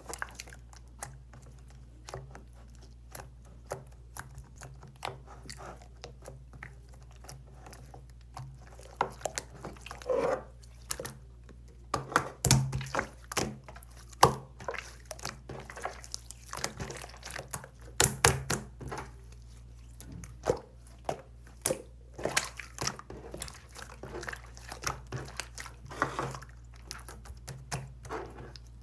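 Hands squishing, pressing and poking a soft slime, giving an irregular run of wet clicks, pops and squelches, with louder bursts of squishing now and then.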